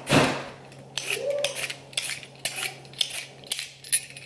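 A potato being peeled with a hand-held vegetable peeler: short rasping scrapes, about two or three a second, with a louder scrape at the very start.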